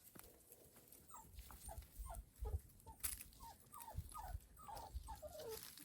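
Five-week-old Labrador retriever puppies whimpering faintly: a quick run of about a dozen short cries, each falling in pitch, starting about a second in. A few soft thumps come in between.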